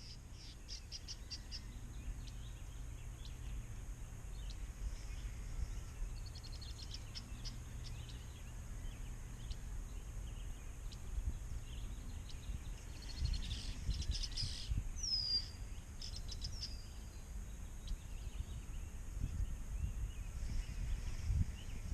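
Birds chirping and calling: a quick run of chirps at the start, a trill about seven seconds in, and a downward-sliding whistle about fifteen seconds in, over a steady low rumble.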